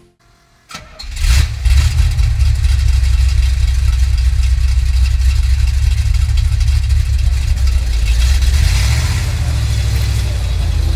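A car engine starts about a second in, then runs with a loud, steady low rumble.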